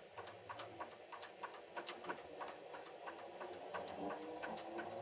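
Faint, irregular ticking, about three or four clicks a second, from the ProtoTRAK's electronic hand wheel being cranked to feed the TRAK lathe's carriage toward its start point, over a faint low hum of the running lathe.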